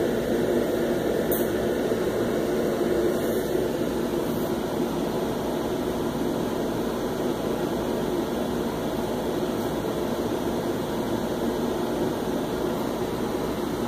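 Steady rain falling, an even rushing noise.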